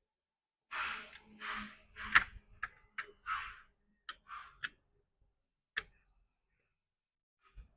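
Copier drum-unit parts being handled and fitted together by hand: a series of short scraping rustles and sharp clicks, the loudest about two seconds in.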